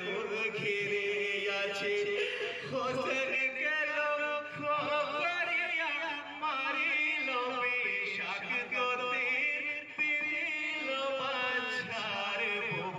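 Men's voices chanting a Bengali marsiya, a Muharram mourning elegy, in a wavering melodic line with long held notes.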